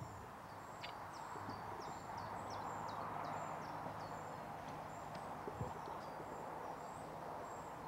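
Steady outdoor background noise, with a small bird repeating short high chirps over and over, and a couple of faint knocks, about a second in and past the middle.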